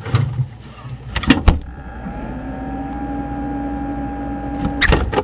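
A few knocks, then a small electric motor humming steadily for about three seconds. It rises slightly in pitch as it starts, then cuts off with a knock near the end.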